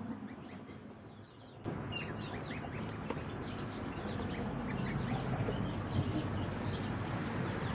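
Gosling and duckling chicks peeping: many short, high calls overlapping, starting about two seconds in.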